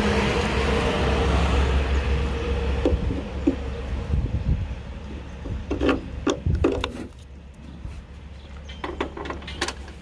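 A steady low rumble with a hiss that fades away over the first few seconds, then a few sharp clicks and knocks.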